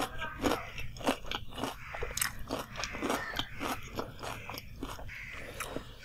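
Close-up chewing of a crisp fried samosa (singhara): a run of sharp crunches, about two to three a second, thinning out near the end.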